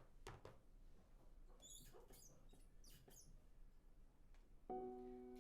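Near silence with a few faint clicks and faint high-pitched squeaks, then a sustained musical chord begins near the end.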